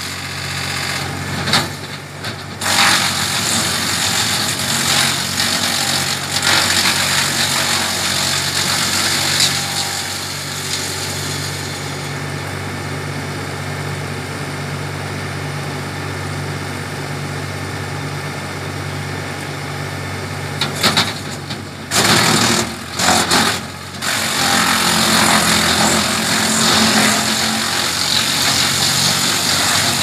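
Hasatsan DP 700 wood chipper driven by a tractor, chipping branches: a steady tractor engine under a loud grinding of wood being shredded. The grinding eases off for several seconds past the middle while the machine runs on, then picks up strongly again near the end.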